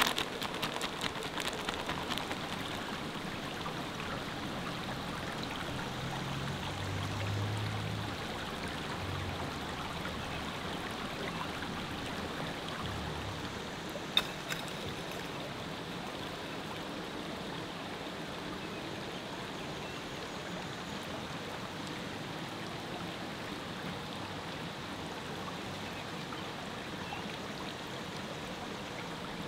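Steady rush of flowing river water, with a single sharp click about halfway through.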